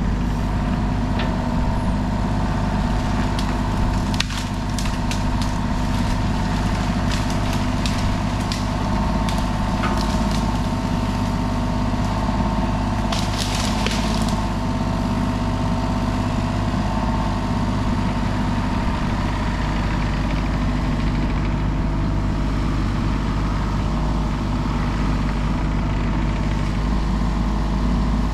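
Kubota KX033 mini excavator's diesel engine running steadily while it pushes over dead trees. Scattered sharp cracks of breaking wood come through in the first third, then a short burst of crackling about halfway.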